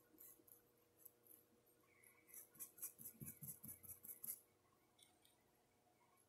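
Faint quick scratchy strokes, about five a second for two seconds starting around two seconds in: a paintbrush filling in paint on a porcelain cup.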